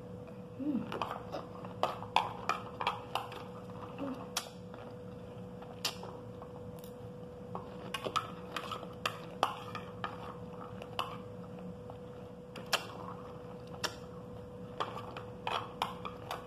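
Metal spoon clinking and scraping on a clear glass plate, scooping up the last pomegranate seeds in irregular sharp clicks, with a faint steady hum underneath.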